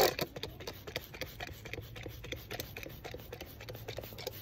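Hand trigger spray bottle squeezed again and again, misting water over the soil in seedling peat pots: a run of quick spritzes, the loudest right at the start.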